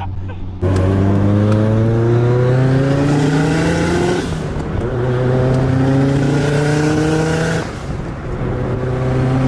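Modified car's engine heard from inside the cabin, accelerating hard through the gears. The pitch climbs steadily in each gear, with an upshift about four seconds in and another drop in revs near the end before it pulls again. Loud, and it sounds nuts.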